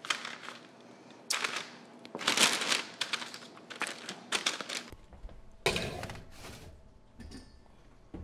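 Parchment paper crinkling and rustling under hands as cranberry scones are shifted and set down on a metal sheet pan, in a string of short sharp rustles and light knocks. After that come a few more clattering scrapes, as of the sheet pan going onto a metal oven rack.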